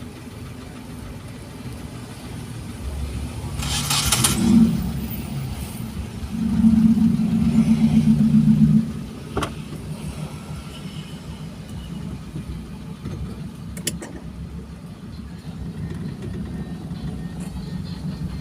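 Car driving, heard from inside the cabin: steady low engine and road rumble. A louder, pulsing low buzz starts about six and a half seconds in and stops sharply about two seconds later, with a short hiss before it and a couple of sharp clicks after.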